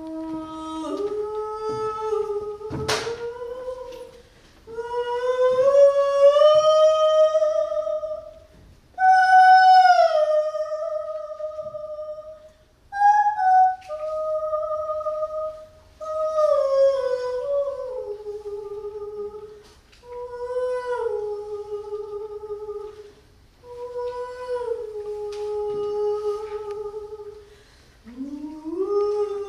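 A woman's solo voice singing unaccompanied, an Andean ceremonial song in long held notes, phrase after phrase of a few seconds each, sliding and stepping between pitches with short breaths in between. A single sharp knock sounds about three seconds in.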